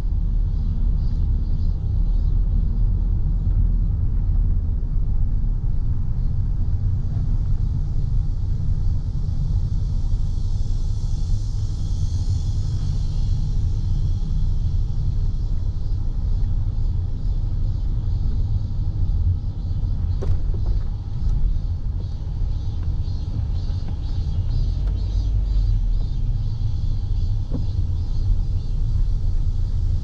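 Low, steady road rumble of a car driving, heard from inside the car, over a high buzzing chorus of cicadas in the roadside trees. The cicada buzz swells and fades about a third of the way in and comes back faintly and fluttering near the end.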